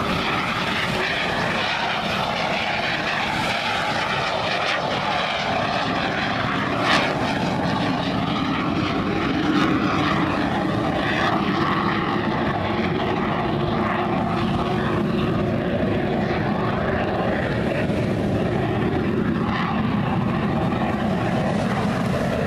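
Aermacchi MB-339 jet trainer's turbojet running in flight, a steady loud rush whose pitch drifts slowly. There is a brief crack about seven seconds in.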